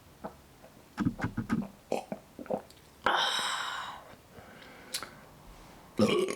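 Close-miked person drinking soda: a quick run of wet swallowing clicks about a second in, then a loud burp about three seconds in that fades over a second, and another short burst near the end.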